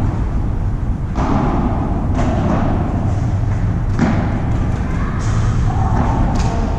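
A handful of dull thuds, about five, from a padel ball being struck and bounced, over a steady low rumble.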